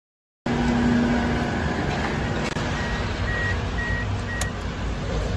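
Mazda MPV's 2.3-litre L3-DE four-cylinder engine idling, heard from inside the cabin, cutting in abruptly about half a second in. A little past the middle, a dashboard chime gives four short, high beeps.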